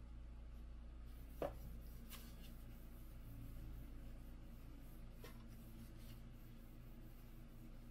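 Faint handling sounds of hands working on a small 3D printer frame: one sharp click about a second and a half in, a few fainter ticks and light rubbing, over a steady low hum.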